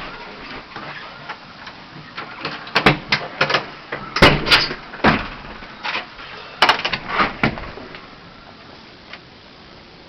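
A rapid series of sharp knocks and bangs, about a dozen over five seconds, the loudest about four seconds in.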